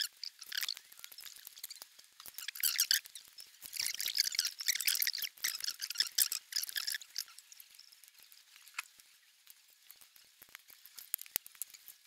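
Small plastic LEGO pieces being handled and fitted together: bursts of rattling, rustling handling noise in the first seven seconds, then scattered light clicks.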